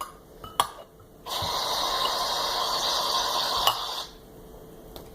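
A steady rushing noise lasting about three seconds, starting and stopping sharply, with a couple of light clicks around it.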